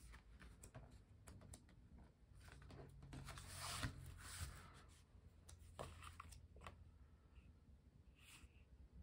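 Faint rustling and sliding of paper as sticker-book sheets and planner pages are handled, with a few light ticks and taps. The rustle is strongest about three to four and a half seconds in.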